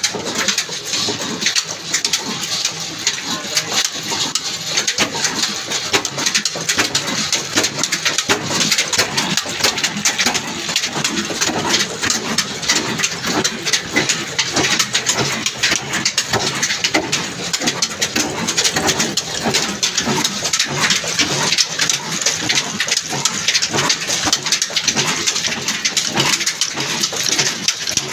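Old 22 hp desi black diesel engine running steadily under load, with rapid regular beats, driving a long flat belt and line-shaft pulleys.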